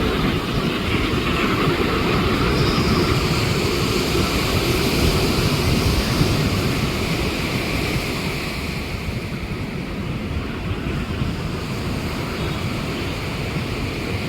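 Engine noise of a passing jet airliner, steady and then easing after about eight seconds, mixed with surf breaking and wind on the microphone.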